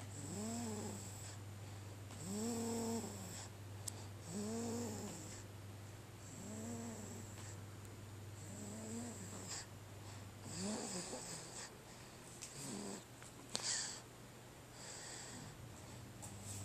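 A sleeping 9-week-old snoring softly and evenly: a short snore that rises and falls in pitch about every two seconds, seven in all. A low steady hum underneath stops partway through, and a sharper, louder breath comes just before the end.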